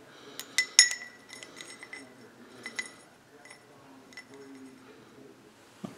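Light metal clicks and clinks as a micrometer is set against a steel camshaft and its cam gear to measure it; the loudest, just under a second in, rings briefly, and the clicks die away after about three seconds.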